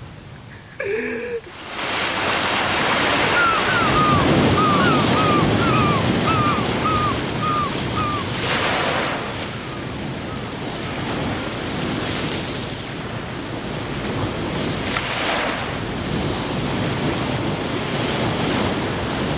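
Ocean surf washing onto a shore, a steady rush that swells twice as waves break, about eight and fifteen seconds in. Between about three and eight seconds in, a bird gives a run of short falling chirps, about two a second.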